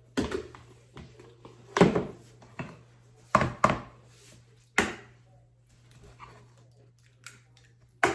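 Eggs being cracked for brownie batter: about six sharp knocks and taps spread over several seconds, two of them close together about halfway through.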